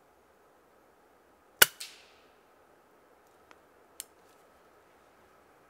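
A single shot from a moderated air rifle, a sharp crack followed a fraction of a second later by a softer knock and a short ring-out. Two faint clicks follow a couple of seconds later.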